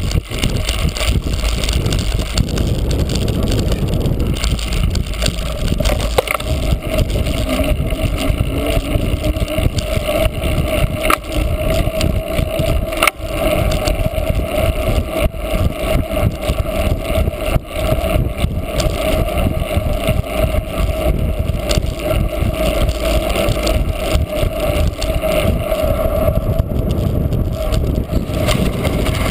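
Steady rumble of wind on the microphone of a bicycle-mounted camera while the bike is ridden, with the bicycle rattling and knocking over the cyclocross course.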